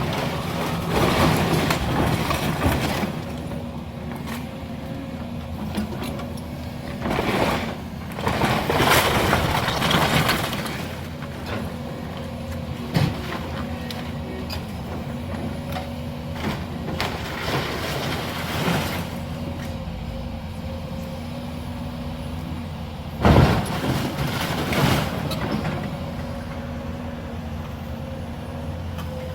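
A heavy diesel demolition machine running steadily while it tears down a house, with several loud crashes and crunches of the structure breaking apart, the biggest near the start, in the middle and about three-quarters of the way in.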